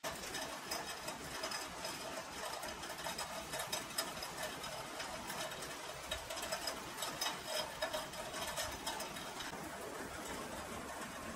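Rain falling in a storm: a dense patter of drop ticks over a steady hiss, the ticking thinning out near the end.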